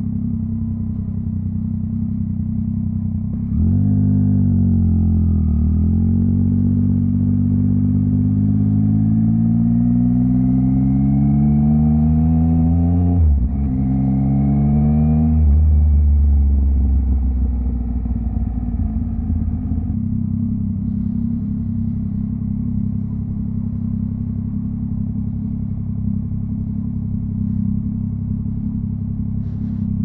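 Yamaha MT-09's inline-three engine running at a low steady note, then pulling away hard about three and a half seconds in. The revs climb in long rising sweeps with two gear changes, then ease off and settle back to a steady low note for the rest.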